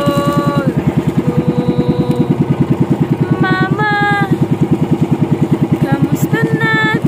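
Outrigger fishing boat's engine running steadily under way, a fast even chugging of about ten beats a second. Held, wavering vocal notes rise over it three times: near the start, about halfway, and near the end.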